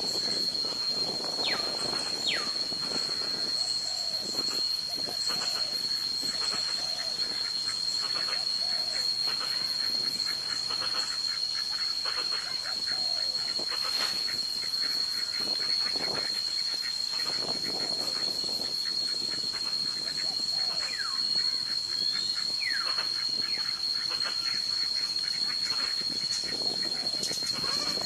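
A steady high-pitched insect drone over a hiss of wetland ambience, with a few short falling whistled bird calls now and then.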